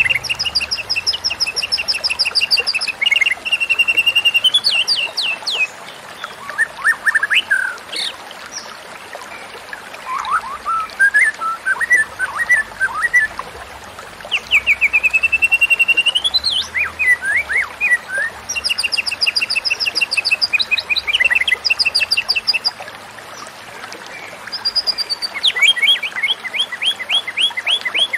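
White-rumped shama singing: loud phrases of fast, repeated whistled notes, trills and short rising and falling glides, coming in bursts with brief pauses between them.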